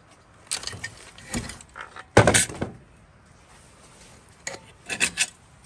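Irregular clicks and knocks of a Jonsered 920 chainsaw body and its loose parts being handled and set down, loudest about two seconds in, with a short cluster of clicks near the end.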